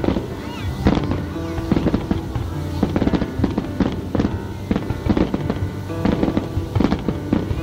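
Aerial fireworks going off in a rapid, irregular string of bangs and crackles, with music playing alongside.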